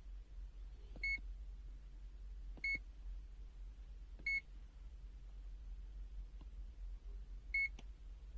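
Digital multimeter giving short, high electronic beeps, four in all and irregularly spaced, as its buttons are pressed while the square-wave output frequency is changed.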